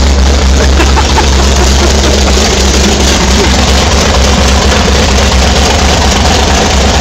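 Jet boat's big-block Ford 460 V8, bored out to 473 cubic inches, running loud and steady with a deep low rumble, on a freshly fitted Holley 650 four-barrel carburetor.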